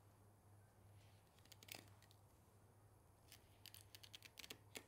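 Faint, scattered clicks and scrapes of a Dexter fillet knife cutting along a blackfin tuna's backbone, most of them in the second half, over a low steady hum.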